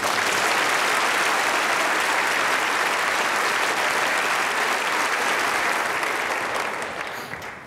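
Studio audience applauding, a steady dense clapping that fades out near the end.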